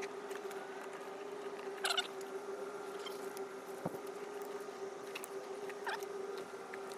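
Plastic headlight lens and housing of a Subaru BRZ being pressed together by hand, giving a few short squeaks and clicks about two seconds apart over a steady faint hum.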